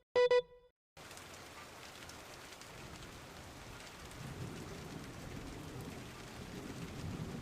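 A loud, short double electronic beep from an emergency-alert sequence, then a steady hiss of rain-like noise with a low rumble like distant thunder that swells toward the end and cuts off abruptly.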